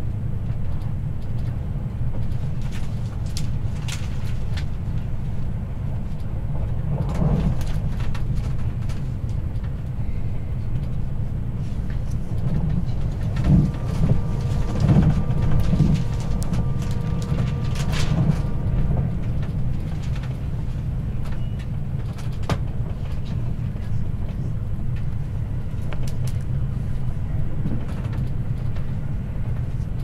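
Train running on the Hakodate Main Line, heard from inside the passenger car: a steady low rumble with scattered clicks and knocks from the wheels and track. In the middle there is a louder patch of a few seconds, with a faint high tone held for about six seconds.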